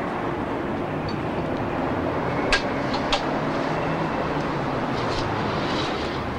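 Steady outdoor street ambience, a low even rumble like distant traffic, with two sharp clicks about half a second apart midway.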